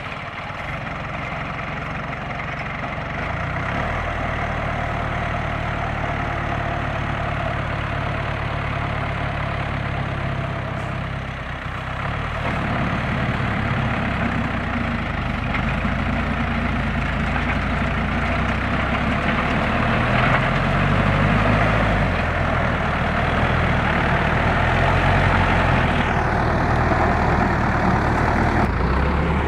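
A heavy farm truck's engine running continuously under load, its pitch shifting a few times as the revs change, with a steady rushing noise over it.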